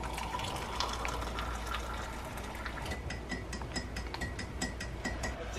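Water poured from a stainless electric kettle into a mug, then a spoon stirring in the mug and clinking against its side, about five quick clinks a second, each ringing briefly.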